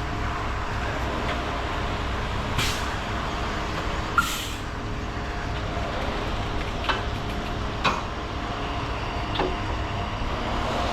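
Concrete mixer truck's diesel engine running steadily, with two short hisses of air about two and a half and four seconds in, and a few light knocks and scrapes.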